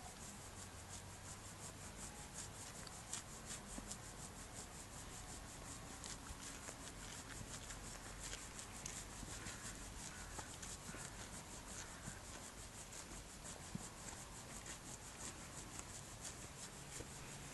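Hand scratching through a pony's shaggy coat in quick, repeated rubbing strokes.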